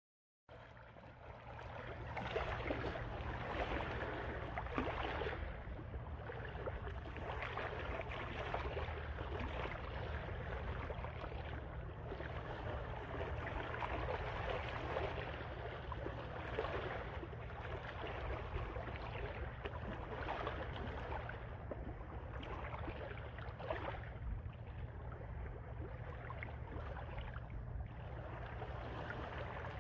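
Wind rumbling on the microphone over lapping, splashing shallow seawater, with no clear single events standing out.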